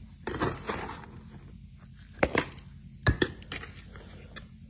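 A few sharp clicks and knocks from a bait container and bait being handled while strips of fish are layered with salt, over a steady low hum.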